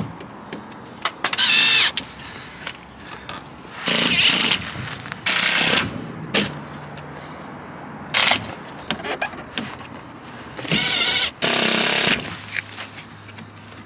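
Cordless drill driving screws up through a plastic front splitter into a car's bumper, in about six short whirring bursts of half a second to a second each, with pauses between screws.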